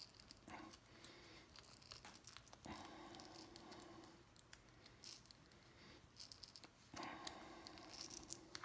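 Faint crackling and small clicks of adhesive letting go as the touchpad of a BMW iDrive controller is pried off.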